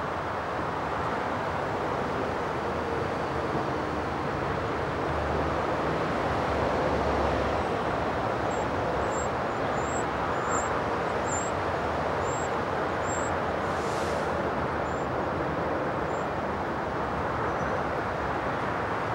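Eurasian wren nestlings begging as a parent feeds them: a string of about a dozen short, thin, very high cheeps over several seconds in the middle. Under them runs a steady noise like distant road traffic, the loudest sound throughout.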